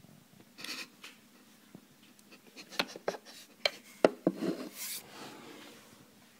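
A bowl being lifted off a water dispenser's plastic drip tray and set down on a table: a short rub, then several small knocks, the loudest about four seconds in, and a brief scrape.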